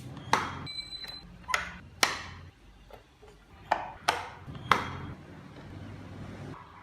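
Six sharp knocks of a tool striking wood, irregularly spaced, each with a short ringing tail.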